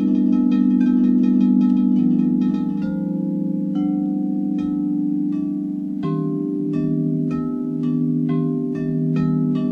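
Frosted crystal singing bowls ringing together in several sustained, overlapping low tones, played with mallets. Short bright struck notes ring over the hum, quick at first, pausing around three seconds in, then coming again at an even pace from about six seconds.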